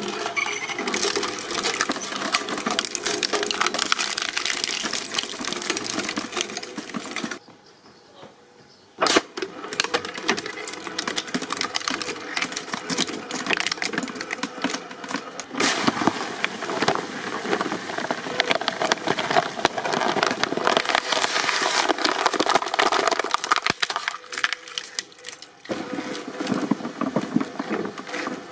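Shredding machine crunching and grinding material, a dense crackling racket. It drops out briefly about seven seconds in and starts again with a sharp crack.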